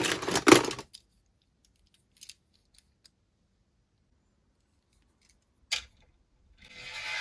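A brief clatter of small hard objects in the first second, then a few faint scattered clicks and one sharper click. Near the end, a hiss swells up.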